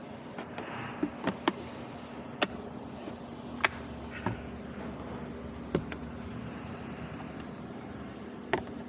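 About eight sharp plastic clicks and knocks, spaced irregularly, as the glove box's clips and parts are snapped back into place, over a steady low hum.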